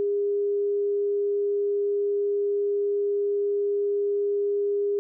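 Broadcast line-up test tone, the reference tone recorded with colour bars at the head of a videotape: one unbroken, steady, mid-pitched note.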